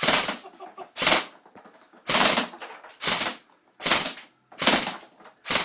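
Airsoft M4 rifle firing single shots at a steady pace, about one a second, seven shots in all, each a sharp crack with a brief mechanical tail.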